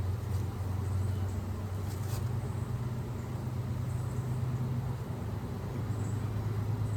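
Honeybees buzzing around an open hive during a frame inspection: a steady low hum, with a couple of faint ticks.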